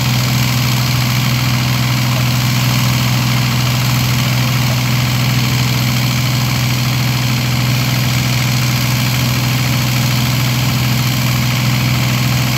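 A heavy engine running steadily at one constant speed, an even low hum with no revving or changes.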